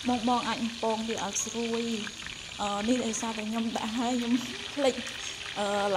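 Field rat meat coated in satay paste sizzling as it fries in a shallow pool of oil in a steel wok. A person's voice comes and goes over the frying.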